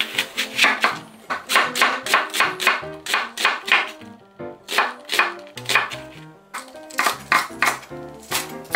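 Chef's knife cutting through onion and then green onion on a wooden cutting board: a run of crisp strokes, about three a second, with a short pause about four seconds in. Background music plays underneath.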